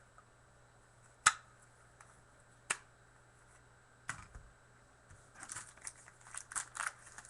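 Three sharp single clicks a second or so apart, the first the loudest, then a run of rapid crinkling and rustling from about five seconds in, like plastic or packaging being handled on a tabletop.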